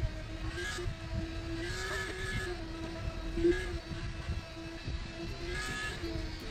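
Truck-mounted concrete boom pump running while pumping concrete: a steady engine drone that wavers slightly in pitch, with a clatter recurring every second or two.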